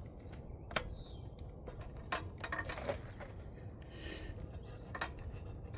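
A handful of light, sharp clicks and taps as a plastic 4-pin connector is handled and pushed onto the pins of a UV bulb, over a faint low hum.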